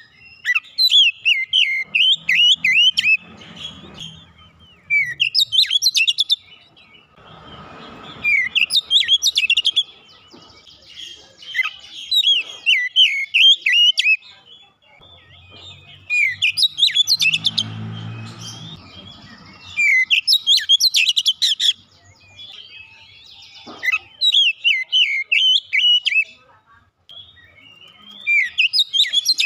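Oriental magpie-robin (kacer) singing: loud bursts of rapid, varied chirps and whistles, phrase after phrase with short pauses between them.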